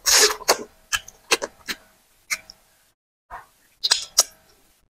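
Close-miked wet mouth sounds of someone eating soft potato fufu with vegetable soup by hand: lip smacks, chewing and sucking clicks in short bursts, with a brief pause a little past the middle.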